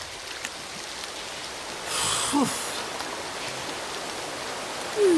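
Shower spray hissing steadily, with a brief louder gush about two seconds in. Short falling-pitch voice sounds come twice, the louder one near the end.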